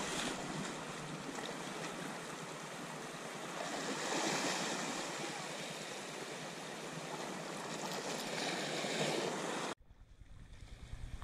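Sea surf washing onto the shore, a steady rush that swells twice and cuts off suddenly near the end.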